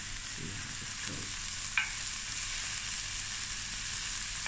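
Diced onions, cinnamon sticks and cardamom pods sizzling steadily in hot oil in a stainless steel pan, stirred with a wooden spoon, with one sharp click about two seconds in.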